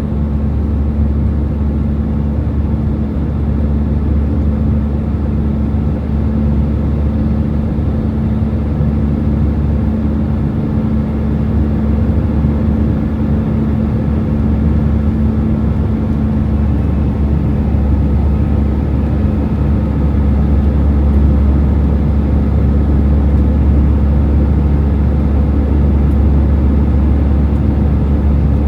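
Airliner cabin noise during the climb after takeoff: a steady, deep rumble of engines and airflow, with a steady hum that fades out about halfway through and the rumble growing slightly louder after that.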